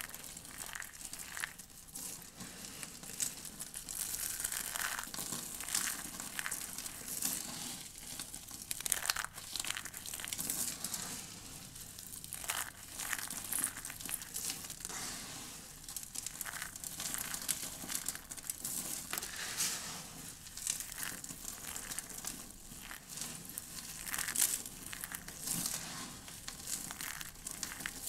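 Hands rubbing, squeezing and stirring a heap of dry soap curls and broken soap chips: a dense, continuous run of small crisp crackles and crunches that swells and eases unevenly.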